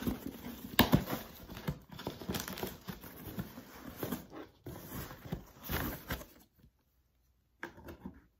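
Scissors cutting the packing tape on a cardboard shipping box, then the cardboard flaps being pulled open, with tape tearing and cardboard rustling and a sharp snap about a second in. It stops about six and a half seconds in, with a brief rustle near the end.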